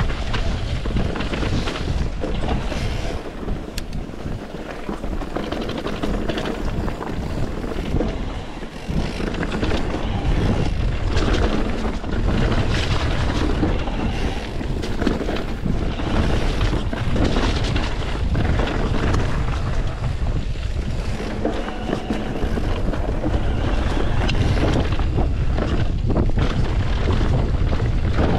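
Mountain bike descending a dirt downhill trail at speed: wind buffeting the rider's camera microphone, with tyre noise and the bike rattling and knocking over rough ground.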